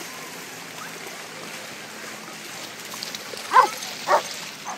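A dog barking twice near the end, two short barks about half a second apart, over a steady wash of water in the lake shallows.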